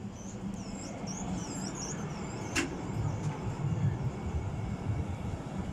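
Electric tram moving off from a stop: a low rumble of its motors and wheels on the rails that grows stronger, with high wavering squeals in the first two seconds and a single sharp click about two and a half seconds in.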